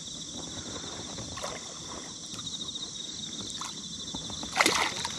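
Hooked black bass splashing at the surface beside an inflatable boat, one short loud splash near the end, over a steady high-pitched drone and a few faint ticks.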